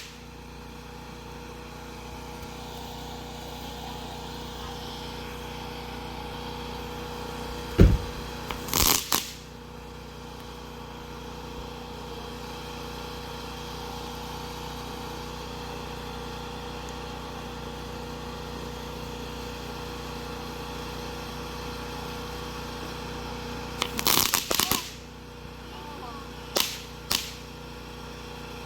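Firecrackers and fireworks going off in scattered sharp bangs and short crackles. The loudest comes about eight seconds in, another follows a second later, then a cluster near the end, over a steady background hum.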